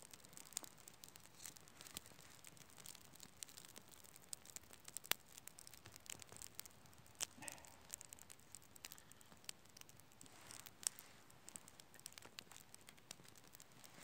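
Small fire of split dry kindling crackling: irregular sharp snaps and pops, with two louder pops about five and eleven seconds in.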